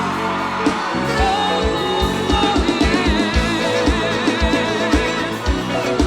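A live forró band playing, with a steady kick-drum beat under a wavering melody line.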